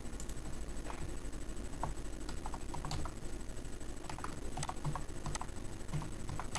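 Computer keyboard keys tapped in short, irregular runs as an IP address is typed in, the taps coming thickest about four to five seconds in.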